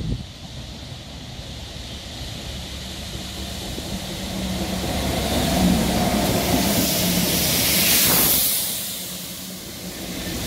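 A rail head treatment train hauled by a Class 66 diesel passes at speed. Its rushing, hissing noise from the water-jetting wagons builds up and peaks about eight seconds in, over the steady low hum of the locomotive's two-stroke diesel. A short knock comes right at the start.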